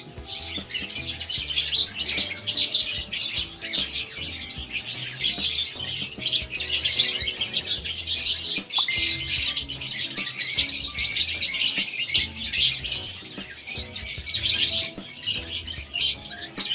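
Many young parrot chicks chirping continuously in a dense, high-pitched chorus, the begging calls of hungry chicks at handfeeding time. Music plays faintly underneath.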